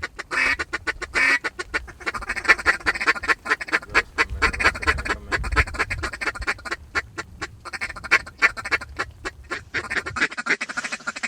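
Duck calls blown in a rapid, continuous quacking chatter to work incoming ducks toward the blind.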